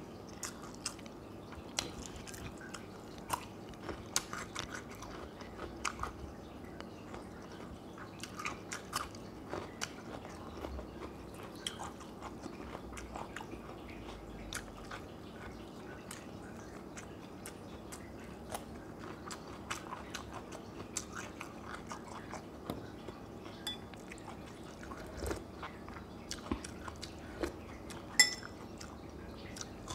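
Close-miked chewing and biting of fried milkfish, with small wet mouth clicks and light crunches at an irregular pace. Near the end a metal spoon clinks once, sharply and with a short ring, against a ceramic bowl.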